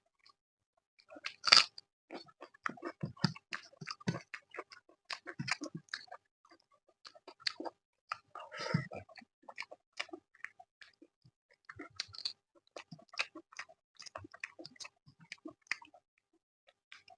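A person chewing a mouthful of chicken curry, rice and naan close to the microphone, a steady run of wet mouth clicks and smacks. Two louder bites stand out, about a second and a half in and near nine seconds.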